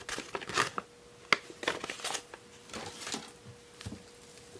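Paper rustling and crinkling as a folded printed paper insert is handled and folded, in a series of short bursts over the first three seconds or so, fading near the end.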